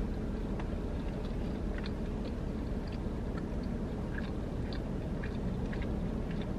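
Close-up chewing of crunchy fried food, with many small, irregular crackles, over a steady low hum.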